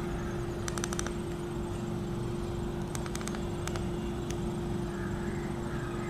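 Steady low background hum with a single steady tone running through it, and a few faint ticks about a second in and again around three to four seconds in.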